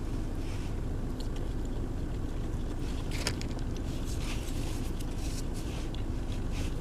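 Steady low hum inside a car's cabin, with the heater running, broken by a few faint short clicks.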